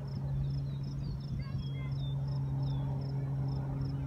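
Birds singing in open air: a high chirp repeated about three times a second and scattered short downward-sweeping calls, over a steady low hum.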